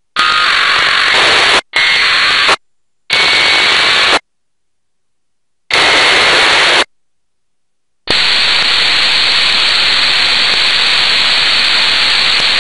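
Narrow-band FM receiver hiss from an RTL-SDR software radio, cutting in and out abruptly four times as the squelch opens and closes while tuning across the 2 m band, then running as steady static from about eight seconds in.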